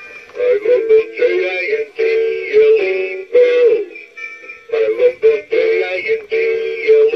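Animated 'Hats Off to Santa' figure singing a Christmas song with musical backing. The voice breaks off briefly about four seconds in, then carries on.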